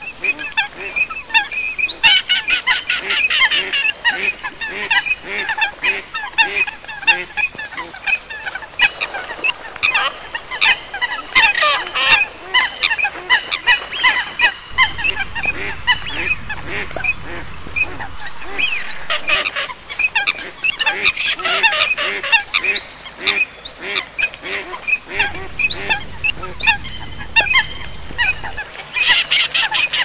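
A mixed flock of waterbirds, common coots with teal and pintail ducks, calling continuously: dense, overlapping short calls and honking notes, over a steady run of lower repeated notes.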